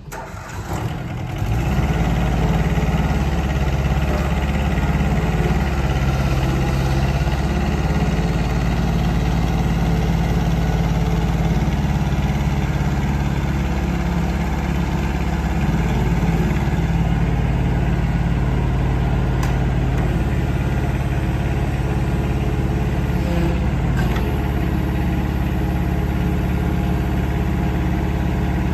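Kobelco SK09SR mini excavator's engine running steadily. It rises to full level within the first two seconds and then holds an even, unchanging note, with a couple of faint clicks later on.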